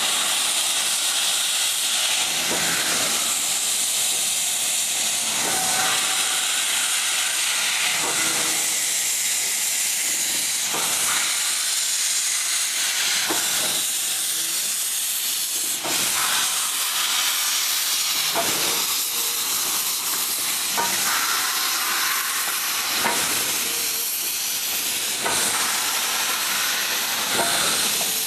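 16A class Garratt steam locomotive hissing steadily as steam jets from around its cylinders, a loud, even hiss.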